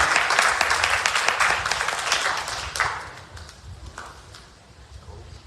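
Congregation clapping: dense applause that thins out and dies away about three seconds in, leaving quiet room noise.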